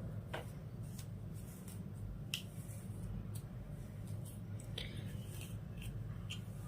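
Crimped hair being detangled: faint, irregular strokes and small clicks, about half a dozen, over a steady low hum.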